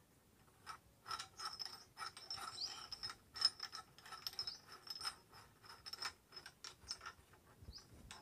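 Galvanised-iron pipe fittings being screwed together by hand, a hex nipple threading into a union. The metal threads make quick, faint rasping clicks with a slight metallic ring, thinning out near the end.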